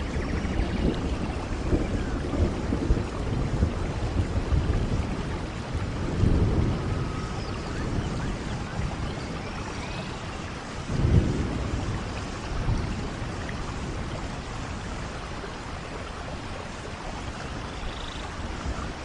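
Steady rain with several low rumbles of thunder swelling and fading, the loudest a little past halfway.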